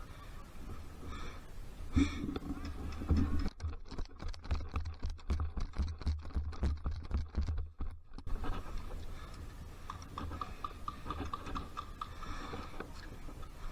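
A run of sharp clicks and knocks over a steady low rumble, densest in the middle, with a quicker, evenly spaced string of ticks a couple of seconds later.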